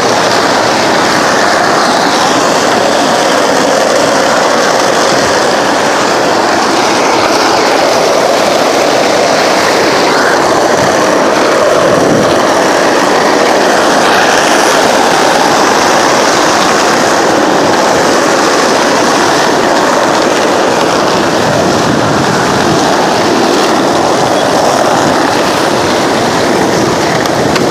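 Skateboard wheels rolling over asphalt, a steady, unbroken rolling noise heard from on the moving board.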